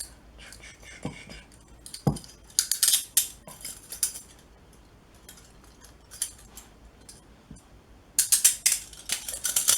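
Steel handcuffs ratcheting shut: runs of quick metal clicks as the cuff's toothed arm passes the pawl, a short run about a third of the way in and a longer, louder one near the end.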